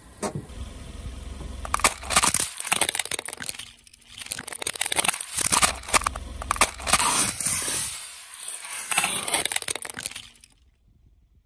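A car tyre rolling over and crushing a small plastic toy gumball machine and hard candy on asphalt. It makes a dense run of sharp cracks, crunches and snaps, with a low rumble from the car. The sound cuts off abruptly about ten and a half seconds in.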